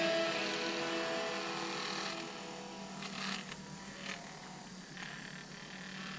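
Hand pin vise turning a fine drill bit through a small plastic part: faint scraping, in short spells, over a steady low hum.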